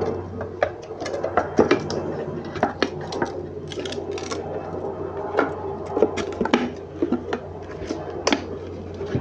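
Irregular clicks and light clinks of metal and glass parts being handled as the glass front of an LED flood light is pressed back into its housing, over a steady low hum.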